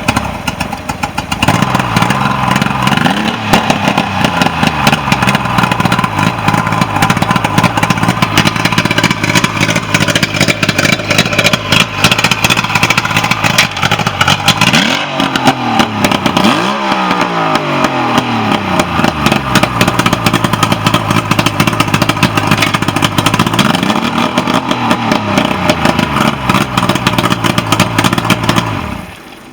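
Mercury boat motor running, now starting after a no-start problem, with its throttle blipped so the engine revs up and drops back several times, twice in quick succession about halfway through and once more later. It is shut off near the end, and the sound stops abruptly.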